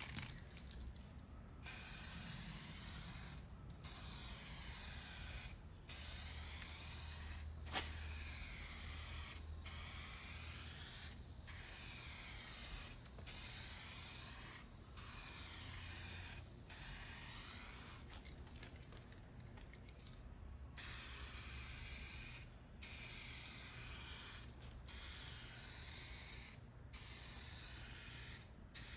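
2K clear coat being sprayed onto plastic headlight lenses: a hiss in short passes of about one and a half to two seconds with brief stops between, and a longer pause about two-thirds of the way through. This is the third and final coat of clear going on over the wet-sanded lenses.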